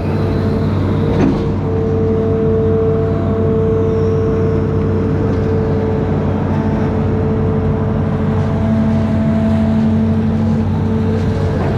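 Amphibious excavator's diesel engine running steadily, with a steady whine above the engine note and a short knock about a second in.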